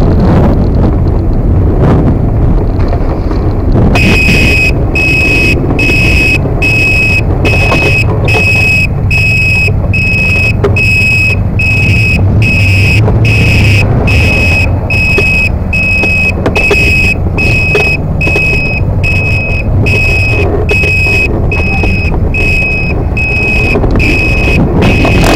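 Electronic buzzer beeping steadily, a high single-pitched beep about one and a half times a second, starting about four seconds in. Under it, steady wind rumble on the microphone from riding the electric scooter.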